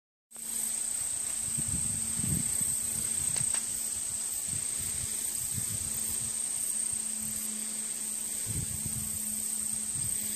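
Steady, unbroken high-pitched drone of an insect chorus, with irregular low wind rumbles on the microphone.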